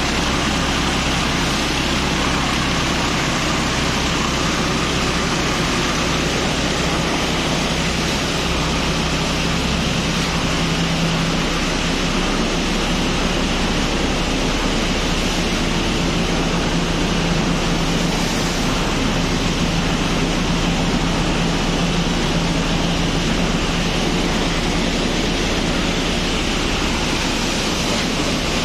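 Green Napier grass grinder running steadily, grinding wet fodder into slurry: a constant rushing machine noise with a low hum underneath.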